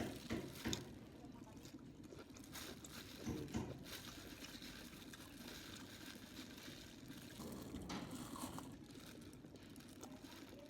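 A person eating: quiet chewing and mouth sounds, with a few sharp clicks and knocks of utensils or dishes.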